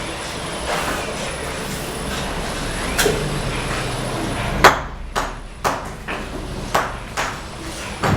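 Bricklaying work: a steel trowel tapping and knocking cement bricks down into their mortar bed, a string of sharp clicks and knocks, the loudest about halfway through. A low steady hum runs underneath.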